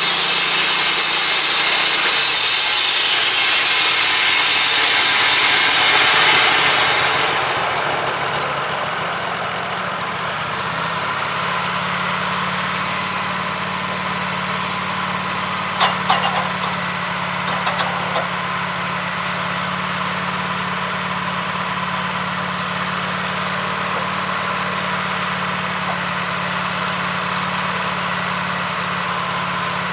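Wood-Mizer LT15 Go sawmill running: loud sawing noise from the band blade for the first six seconds or so, then fading away as the engine settles to a steady idle. A few short knocks follow.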